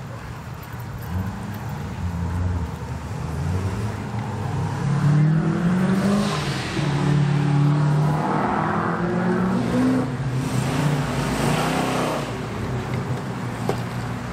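A motor vehicle's engine passing by, its pitch shifting up and down as it grows louder, loudest through the middle stretch, and easing off near the end.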